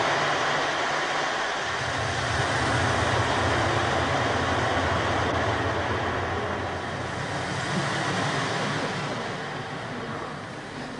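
Sea waves sound effect in a stage play, marking a drowning, slowly fading out.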